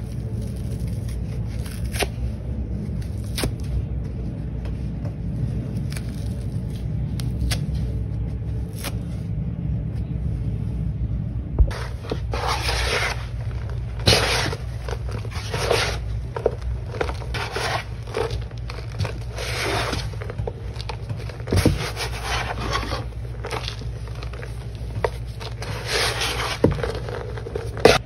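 Dry sponge torn apart by hand, then its pieces rubbed and scraped together in powdered cleanser. A low steady rumble with sparse crackles and clicks fills the first half, then rhythmic scraping strokes, roughly one or two a second, take over about halfway through.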